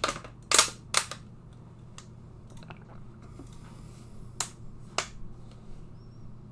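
Computer mouse clicking: a sharp click right at the start, a loud close pair about half a second in, then single clicks near one, two, four and a half and five seconds, over a faint low hum.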